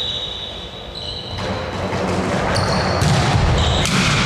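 Indoor court game sounds: a ball thudding and several short high squeaks like shoes on the floor, in an echoing hall.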